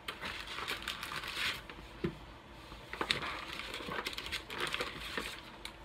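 Paper and plastic snack packaging crinkling and rustling as hands rummage inside a cardboard box, with small clicks, pausing about halfway and starting again.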